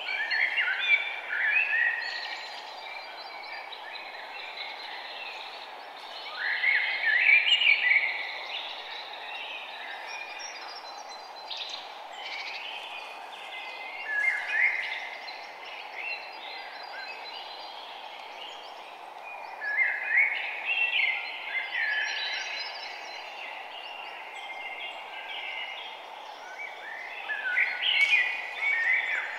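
Birds chirping and twittering in short bouts every several seconds over a steady background hiss, like an outdoor nature ambience.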